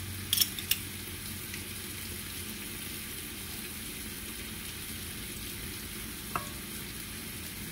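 Pork ribs sizzling steadily in a frying pan in a little soy-seasoned water. A few light clicks from a metal garlic press within the first second, and one more about six seconds in.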